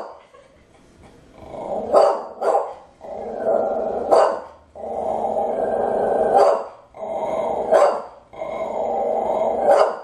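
Small dog growling in long stretches, each broken off by a sharp bark: six barks in all, starting about a second and a half in.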